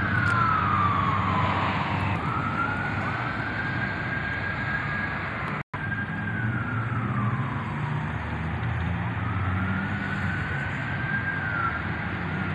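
Emergency-vehicle siren sounding a slow wail, rising, holding and falling about every four seconds, over a low rumble. The sound cuts out for a moment about halfway through.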